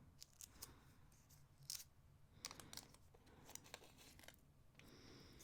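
Faint handling sounds of a small pack of rhinestone heart pendants being opened and the pendants picked over: scattered light clicks and crinkles, busiest in the middle.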